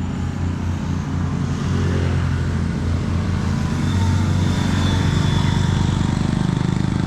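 Vehicle engine running steadily with a low, even drone, growing slightly louder over the first two seconds.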